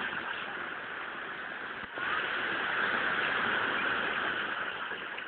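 Steady rushing noise of ocean surf on the beach, with a brief dip about two seconds in.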